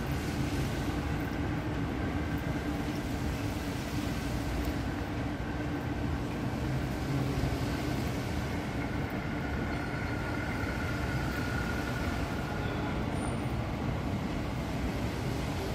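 Steady background rumble with a faint, even hum, unchanging throughout.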